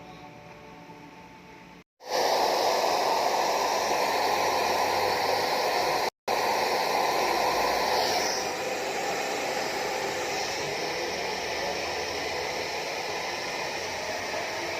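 Hair dryer blowing on medium heat with a steady rushing hiss. It comes in loud about two seconds in, cuts out for a split second near six seconds, and runs a little quieter from about eight seconds on.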